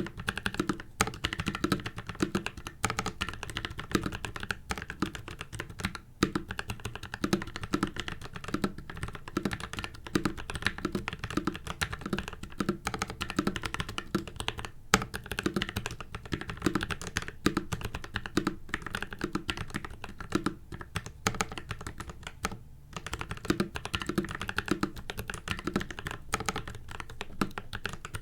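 Continuous typing on a mechanical keyboard with PACO switches lubed with Krytox 205g0, clipped and lubed stabilizers, case and plate film, and PBT cherry-profile keycaps, the board sitting without a desk mat. Fast, irregular keystrokes, with a short pause near the end.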